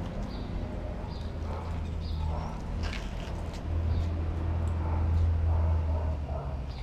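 Dogs' claws clicking on tiled paving as they walk about, over a low steady rumble that swells between about four and six seconds in.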